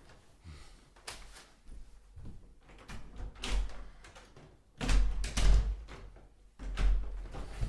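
A holophonic 3D recording of irregular knocks and thuds that build into heavy bangs, loudest about five seconds in and again near the end.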